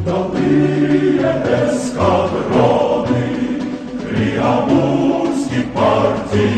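A choir singing a song over instrumental accompaniment, with a steady beat of low pulses about twice a second.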